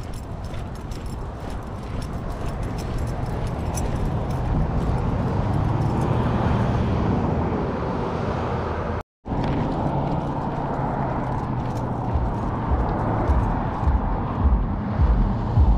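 Road traffic passing by outdoors: a steady rushing noise with a low engine hum, growing a little louder, breaking off for an instant about nine seconds in.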